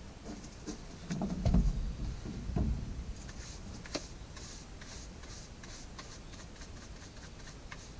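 Handling and cleaning an opened Oregon CS300 battery chainsaw: a few dull knocks in the first three seconds, then faint scattered light clicks and scratching.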